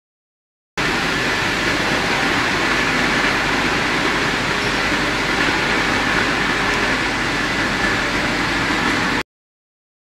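Steady running noise of an industrial microwave drying tunnel, an even fan-like hiss with a faint steady whine. It starts suddenly about a second in and cuts off abruptly just before the end.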